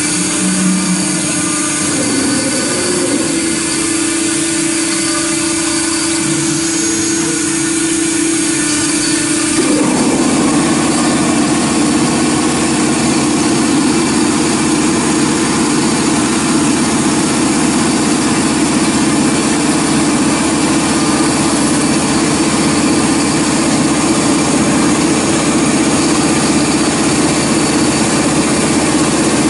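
CNC router spindle running steadily with a constant tone while its cutter mills aluminium. About ten seconds in, the sound abruptly becomes louder and fuller, as the cut changes, and stays that way.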